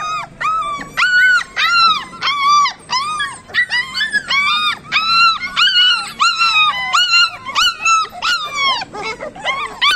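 Labrador puppies whining and yelping: a quick run of short, high-pitched cries, each rising and falling, about two a second.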